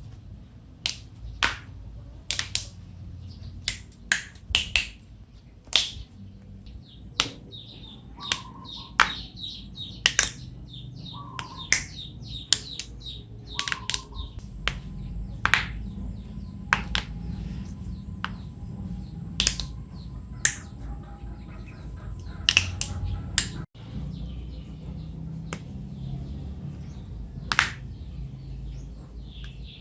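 Knuckles and finger joints cracking: a long series of sharp single pops at irregular intervals, some in quick pairs.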